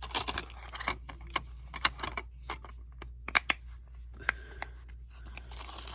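Plastic DVD case being handled and opened: irregular sharp clicks and light taps, a few in quick pairs, with soft rustling.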